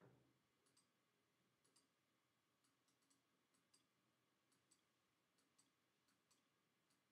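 Faint computer mouse clicks, each a quick pair of ticks (button press and release), about one a second, as polygon faces are picked one after another. A soft thud right at the start.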